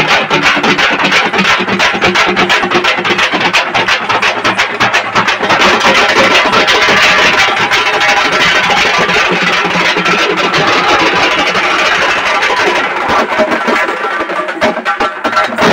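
A group of dappu frame drums played together in a fast, dense, loud rhythm of close-packed strokes, thinning a little near the end.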